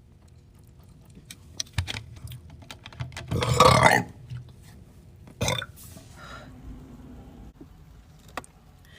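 A person burping up gas from gulped-down Sprite. The loudest burp comes about three seconds in and lasts about a second, and a shorter one follows about two seconds later. Small clicks and gulps come before them.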